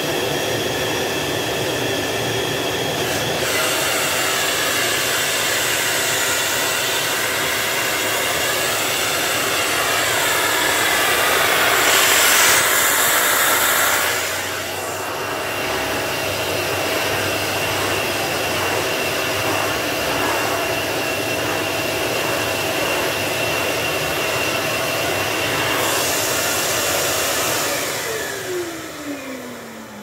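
Samsung VW9000 bagless canister vacuum cleaner running loud, a steady motor whine over rushing air. The airflow sound shifts a few times and swells louder for a couple of seconds about twelve seconds in. Near the end it is switched off and the motor's pitch falls as it spins down.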